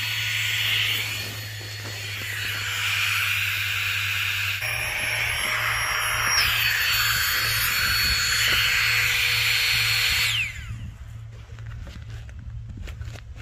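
Small battery-powered air pump (Max Pro 2) running steadily with a high whine as it blows up an inflatable sleeping mat. About ten seconds in it stops, its whine sliding down as the motor spins down.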